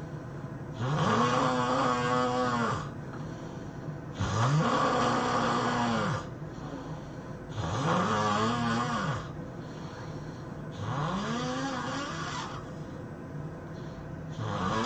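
A person snoring in a steady rhythm: four long, pitched snores about every three and a half seconds, each rising in pitch at the start and falling away at the end, with a fifth beginning near the end.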